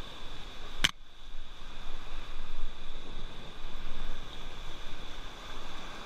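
Rushing river water and splashing around an inflatable raft running rapids, an uneven, fluctuating rush. A single sharp click sounds less than a second in.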